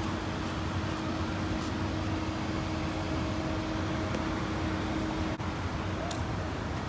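Steady low rumble of background noise with a steady mechanical hum that drops away about five and a half seconds in.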